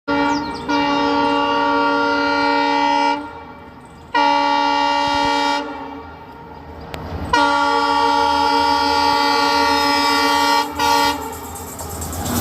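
Train horn sounding in four blasts at a steady pitch: three long ones, roughly two and a half, one and a half and three seconds long with short gaps between, then a brief blast near the end, over a low rumble from the train.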